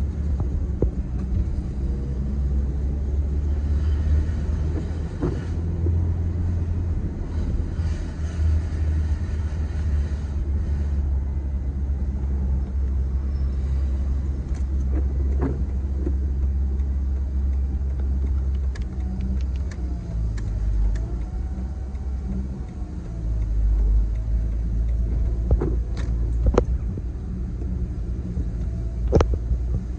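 Low, steady rumble of a car driving slowly, heard from inside the cabin, with a few sharp clicks in the second half.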